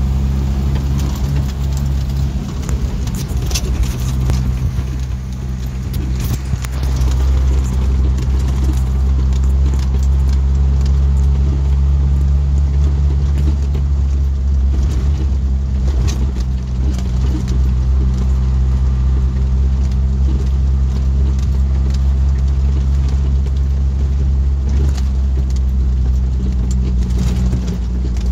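A Jeep Wrangler YJ's 2.5-litre four-cylinder engine running steadily under way, heard from inside the cabin as a low drone. Over the rough sandy track, frequent rattles and knocks come from the body and loose fittings.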